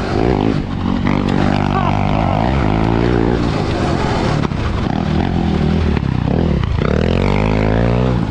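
Sport quad's engine, the quad fitted with half-tracks, revving hard and easing off over and over, its pitch climbing and falling with the throttle. About six seconds in it drops off sharply, then climbs again.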